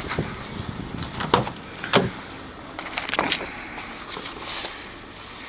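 Handling noises as a person gets into a minivan's driver's seat: about five sharp clicks and knocks, the loudest about two seconds in, over light rustling. No engine is running yet.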